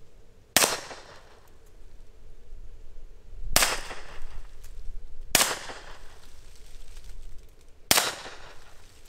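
Walther PPK/S .22 LR pistol firing Aguila Interceptor 40-grain rounds, four single shots spaced two to three seconds apart. Each is a sharp crack with a short ringing tail, the first about half a second in.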